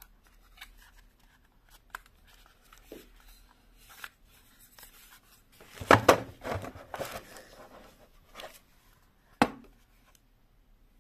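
Handling noise as a plastic monitor light bar and its clamp are moved about in a cardboard box: scattered clicks, light knocks and rustling of packaging. The noise is busiest about six to seven seconds in, and a single sharp knock comes about nine seconds in.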